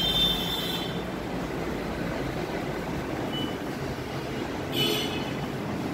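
Steady low rumble of outside traffic noise, with two brief higher hissing sounds at the start and again about five seconds in.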